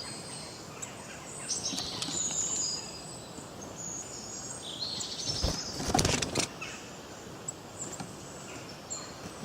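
Several forest birds singing and chirping, with short high calls overlapping one another. About six seconds in, a louder burst of rapid strokes lasts about a second.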